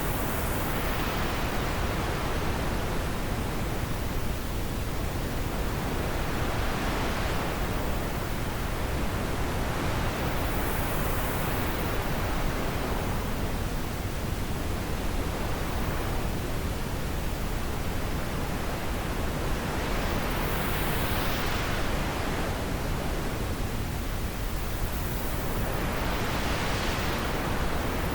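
Wind blowing in a steady whooshing hiss that swells and fades in gusts about every five or six seconds.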